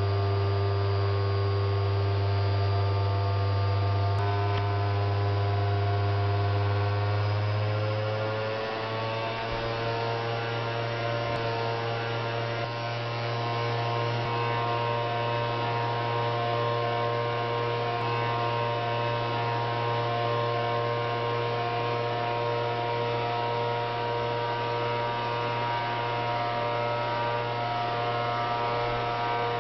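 Electric motor spinning a wheel, with a steady low hum and a whine above it. The whine rises in pitch over a few seconds as the motor gets up to speed, then holds steady at high speed.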